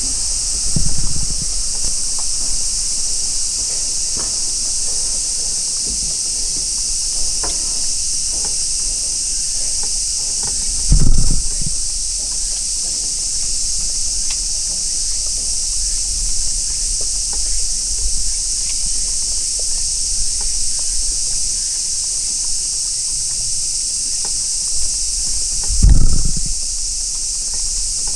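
A steady, high-pitched chorus of summer cicadas in the surrounding woods, with a low rumble beneath it. It is broken twice, about 11 and 26 seconds in, by a short dull low thump, the loudest sounds here.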